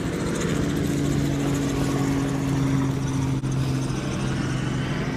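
Engine of a tourist trolley running at a steady, even pitch, over a constant rushing noise.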